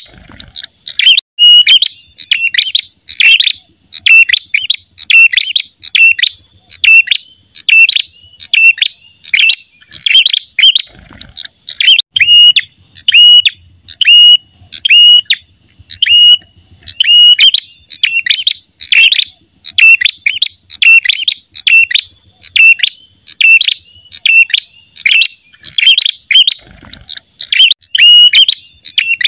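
Male ashy tailorbird (prenjak kepala merah) giving its fighting call: loud, sharp high-pitched chirping notes repeated over and over, a little more than once a second.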